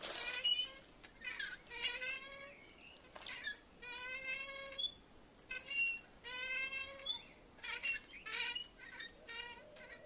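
Hand saw cutting through a woody trunk: back-and-forth strokes, roughly one a second, each a short rasping buzz whose pitch slides up or down with the speed of the stroke.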